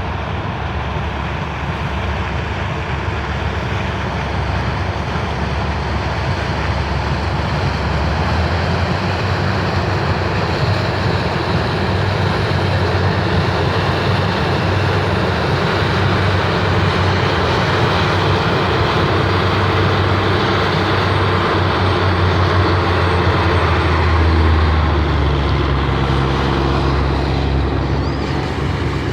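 Claas Lexion combine harvester running steadily while harvesting corn: a low engine drone under a dense rushing machinery noise, with the engine note shifting a little near the end.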